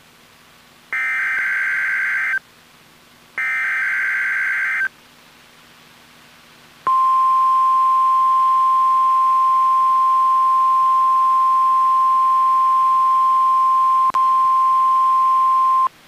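NOAA Weather Radio Required Weekly Test: the last two bursts of the SAME digital header, each about a second and a half of buzzing data, then about two seconds later the steady 1050 Hz weather radio alert tone, held for about nine seconds with a brief dropout near the end. Taken straight from the weather radio's audio output.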